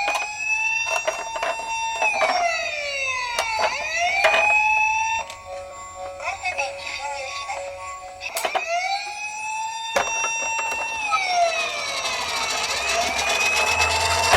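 Toy police minicar's electronic siren wailing, each tone rising, holding, then sliding down, with a stretch of steady stepped tones in the middle and a few sharp clicks.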